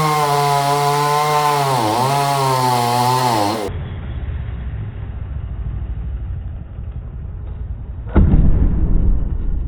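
A chainsaw runs at high revs, its pitch dipping briefly about two seconds in as it takes load, and stops suddenly about halfway through. Then comes a low rumbling noise and a single heavy thud near the end.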